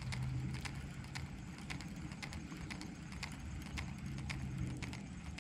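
Light, uneven clicking, a few clicks a second, from a baitcasting reel as a lure is reeled in. A low steady hum comes in twice, near the start and again about four seconds in.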